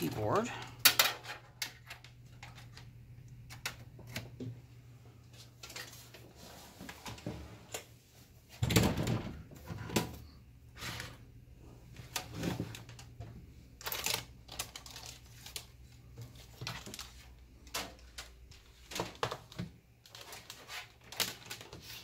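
Scattered clicks and knocks of things being handled on a desk, with a louder thump about nine seconds in, over a steady low hum.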